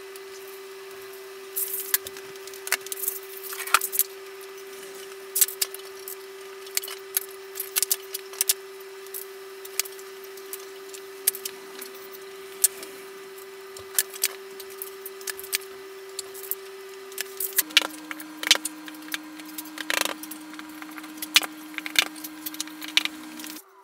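Metal assembly fittings and particleboard furniture panels being handled, with irregular light clicks, jingles and knocks as parts are picked from a plastic tray and panels are set onto their posts. A steady low tone runs underneath and drops to a lower pair of tones about 18 seconds in.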